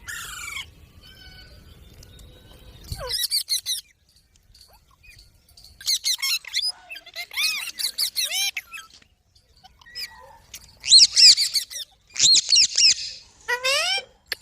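Green parrot giving shrill squawks and screeches in several bursts of quickly repeated calls, the loudest about eleven seconds in.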